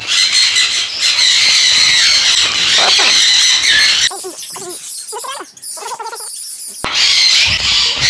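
A flock of pet parrots, macaws, cockatoos and conures among them, screeching loudly and harshly. About four seconds in it drops abruptly to quieter, short warbling calls, and the loud screeching comes back near the end.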